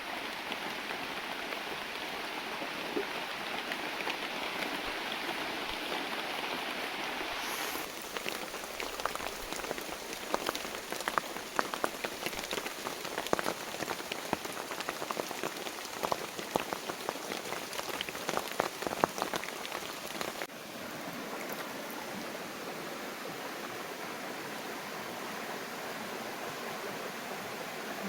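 Heavy rain falling steadily. The sound changes abruptly about eight seconds in, and again about twenty seconds in. In the middle stretch many sharp, separate drop hits stand out above the steady rain.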